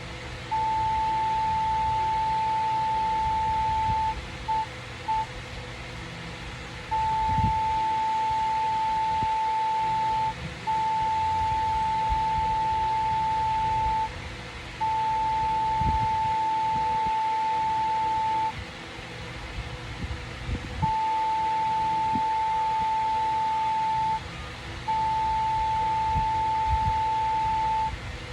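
Morse code sent as a steady high beep tone, keyed very slowly: long dashes of about three seconds each and short dots. The pattern is dash-dot-dot, then three dashes, then two dashes, spelling the letters D, O and the start of G of 'dog', the last word of 'the quick brown fox jumps over the lazy dog'.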